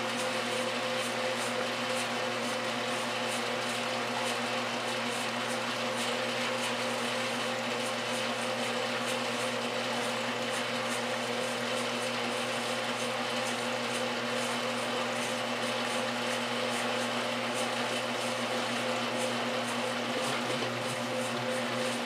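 1968 Kenmore top-loading washer running through its wash, its motor and transmission humming steadily as the agitator works the load, with a faint regular ticking. The low part of the hum grows a little stronger near the end.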